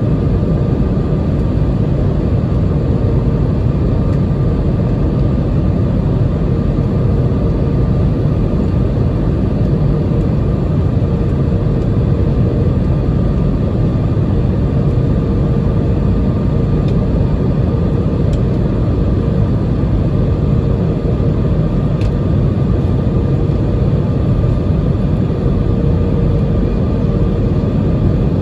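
Jet airliner cabin noise heard from a window seat over the wing: the steady rumble of the engines and airflow, with a faint even hum above it.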